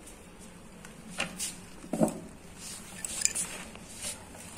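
A few light clinks and knocks of hard household objects being handled while a crocheted cover is laid on a small stand; the loudest knock comes about two seconds in.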